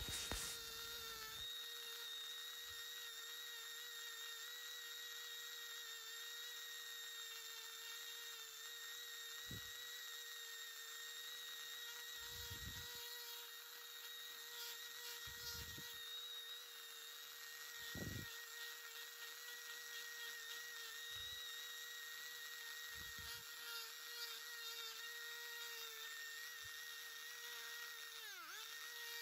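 Handheld rotary tool fitted with a carbide burr, running with a steady high whine as it grinds into pine wood. Near the end its pitch dips briefly and recovers as the burr bogs under load.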